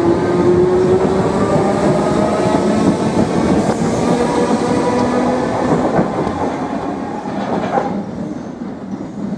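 Southern electric multiple unit pulling out past the platform: the traction motors' whine rises in pitch at first, over loud wheel and rail noise with a few knocks. The noise fades after about eight seconds as the last car goes by.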